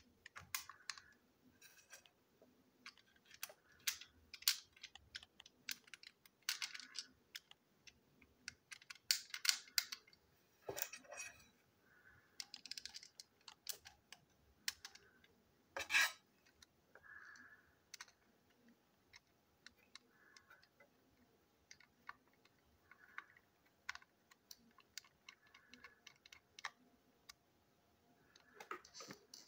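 Plastic parts of a toy engine being handled and fitted together by hand: scattered light clicks and taps, with one louder knock about sixteen seconds in.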